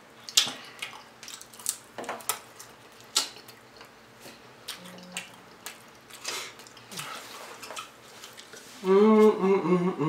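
Close-up eating sounds: sharp crunches and wet chewing of fried chicken wings and egg rolls, several separate bites. Near the end a voice hums a few notes.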